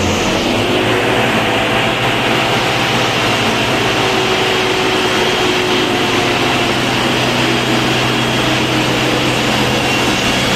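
Diesel truck engine idling steadily: a constant low hum under an even hiss.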